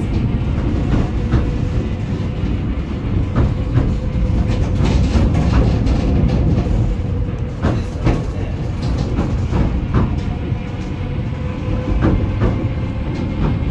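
Southend Pier Railway train running along the pier, heard from inside the carriage: a steady low rumble of wheels on rail with irregular clicks and clacks from the track, over a faint steady hum.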